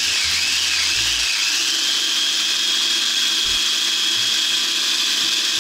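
Electric blender running steadily with a high whine, grinding a spice paste of ginger, garlic, candlenuts and onion.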